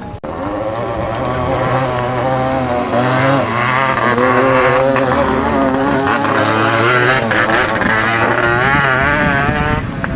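Yamaha RX motorcycle's two-stroke single-cylinder engine running on its stock exhaust, its pitch wavering up and down as the throttle is worked.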